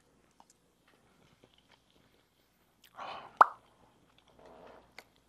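A person chewing raw yellowtail sashimi, with soft mouth sounds and faint clicks, and one sharp, loud click a little over three seconds in.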